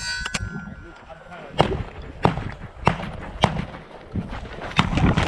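A steady string of about seven rifle shots, roughly one every half to two-thirds of a second. Right at the start a steel target rings after a hit.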